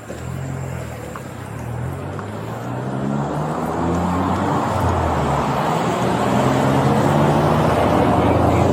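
Road traffic: a motor vehicle's engine and tyre noise growing steadily louder, loudest near the end.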